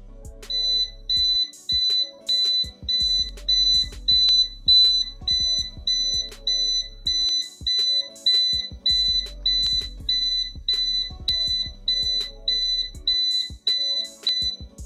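Fast, evenly repeated high electronic beeps, nearly two a second, starting about half a second in and stopping near the end: an alert sounding as the fire-fighting robot's alarm call comes through to the phone. Background music plays underneath.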